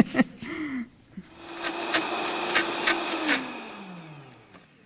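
Vitamix blender motor blending cooked apricots with liquid: it spins up about a second in, holds a steady pitch with a few sharp clicks, then winds down in falling pitch as it is switched off.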